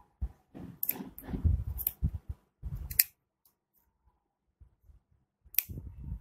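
Scissors snipping green macrame cord ends: a few sharp snips amid rustling as the cords are handled, then a quiet pause of about two seconds before one more snip near the end.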